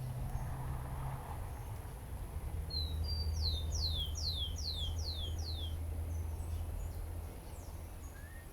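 A songbird sings one phrase about three seconds in: two short notes, then a run of about six quick downward-slurred whistles. A steady low rumble runs underneath.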